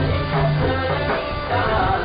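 Prayer song: singing over a steady instrumental accompaniment with a low, held drone.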